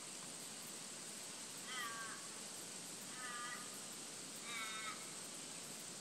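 An Australian crow calling three times, each a drawn-out caw about a second and a half apart, over a steady high insect hiss.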